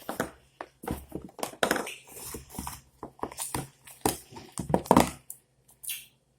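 Homemade glue-and-shaving-cream slime being squished and worked by hand, a string of irregular short squishing sounds. The slime is still sticky, with more detergent being worked in.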